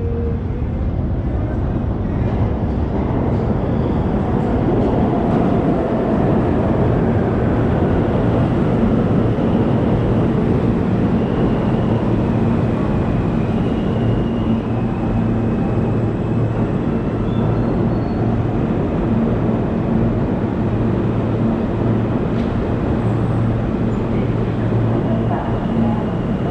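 New York subway train running alongside the platform with a heavy rumble and rail clatter that builds over the first several seconds. It then stands at the platform with a steady low electrical hum.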